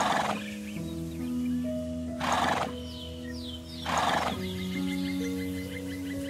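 Wildebeest calls: three short, noisy grunts about two seconds apart, over background music.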